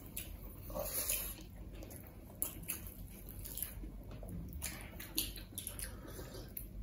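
Wet, irregular smacking and squishing of people eating rice and curry with their hands: fingers kneading the food on metal plates and mouths chewing, in scattered short clicks.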